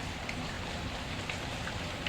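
Steady rain, mixed with a few light, scattered crackles of a wood fire.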